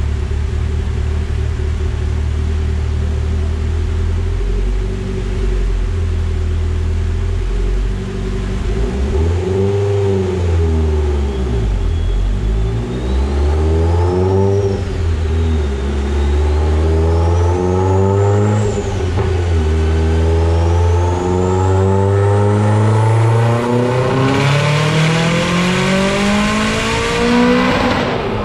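Mitsubishi Evo X's turbocharged 2.0-litre four-cylinder (4B11T) with a Garrett G25-660 turbo, doing a full dyno pull on about 29–30 psi of boost. After a steady run low in the revs, the engine pitch rises and falls with a high whistle above it, then climbs steadily and loud at full throttle before cutting off sharply just before the end.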